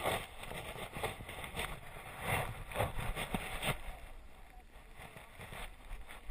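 Irregular rustling and bumping close to a dog-mounted action camera as the dog moves about and is handled, several bursts a second for the first few seconds, then quieter.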